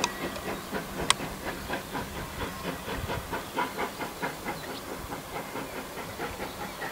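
Polish PKP class Pt47 two-cylinder steam locomotive working away under power, its exhaust beating in a quick even rhythm over steady hissing steam. A single sharp click about a second in.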